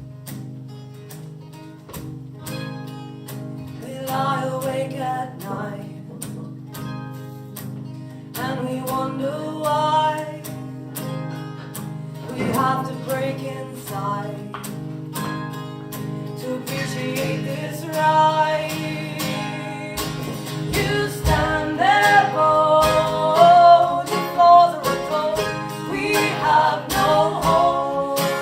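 Live folk-pop music: acoustic guitar strumming with a voice singing over it, growing fuller and louder as the song builds.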